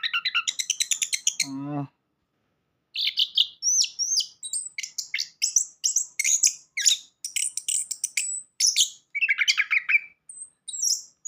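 Orange-headed thrush (anis kembang) singing a fast, varied song of rapid chirps and short whistled glides. The song breaks off briefly about two seconds in, with a short low warbling sound just before the gap.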